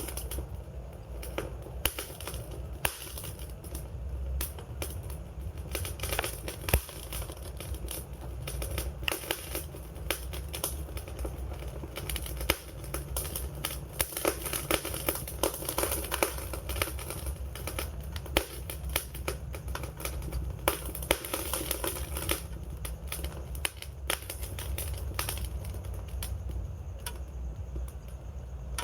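Wood fire crackling steadily, with many irregular sharp pops and snaps over a low rumble of burning.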